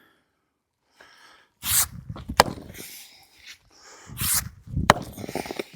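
Two sharp strikes about two and a half seconds apart, each with rough scraping and crunching around it: a tool chipping at broken driveway concrete.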